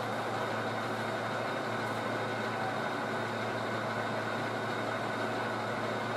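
Sound-equipped HO scale model diesel locomotive running with a steady diesel engine sound as it slowly shoves a cut of hopper cars to uncouple them.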